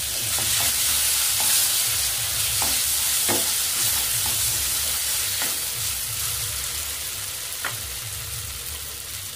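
Mashed potato and roasted eggplant frying in hot oil in a kadai, sizzling steadily while a wooden spatula stirs them, with a few clicks of the spatula against the pan. The sizzle gradually gets quieter over the second half.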